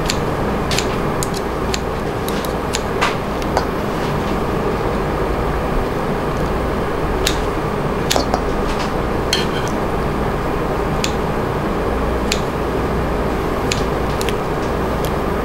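Metal tongs clicking and tapping against a stainless steel hotpot every second or so while mushrooms are laid in, over a steady background hum.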